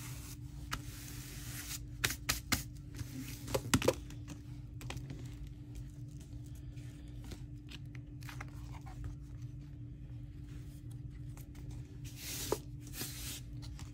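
Paper and card being handled: rustling and scraping with scattered light taps and clicks, a longer rustle about twelve seconds in, over a steady low hum.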